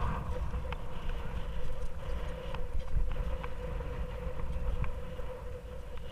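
Mountain bike rolling over a pump track's jointed panels: a steady hum from the knobby tyres with wind rumble on the camera mic, and scattered sharp clicks and knocks about a second apart.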